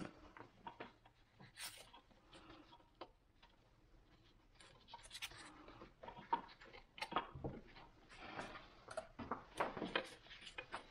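Faint, scattered clicks, taps and scrapes of gloved hands fitting a hydraulic trim hose and its metal fitting into a Volvo Penta SX Cobra gimbal housing, busier in the second half.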